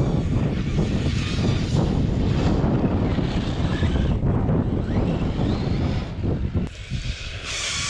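Wind buffeting the microphone, with the faint rising and falling whine of a Traxxas Slash 4x4 RC car's brushless electric motor as it drives over gravel. Near the end the rumble drops and a short burst of hiss follows.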